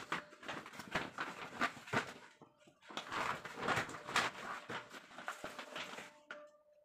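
Woven polypropylene sack rustling and crinkling as hands shake it out and open it, in a run of irregular crackles that stop about six seconds in.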